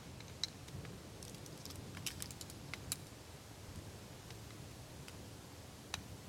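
Campfire crackling: scattered sharp pops at irregular intervals, a quick run of them around two to three seconds in, over a low steady rumble.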